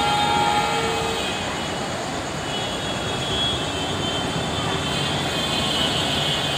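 Steady roar of a jet airliner on approach passing over, with a high whine, mixed with the low rumble of an express train approaching on the track.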